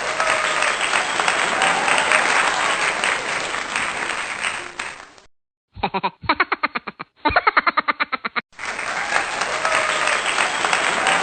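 Crowd applause sound effect, broken about five seconds in by roughly three seconds of a rapid string of short repeated pitched sounds, after which the applause resumes.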